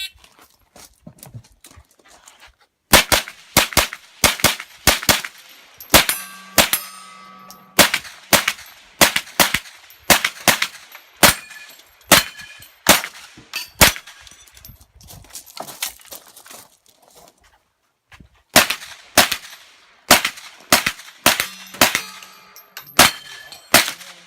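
9mm AR-9 pistol-caliber carbine fired in quick strings of shots at steel targets, the hits ringing the steel plates. There is a break of about two seconds about two-thirds of the way through, then the rapid firing resumes.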